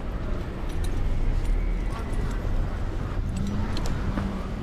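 City street noise: a steady low traffic rumble, with scattered light clicks.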